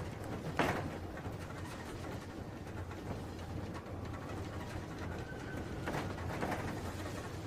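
Steady low rumble of a train, with two sharp clanks about five seconds apart.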